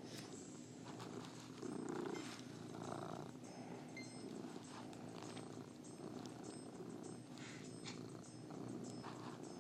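Domestic cat purring steadily and close up, with a louder swell about two seconds in.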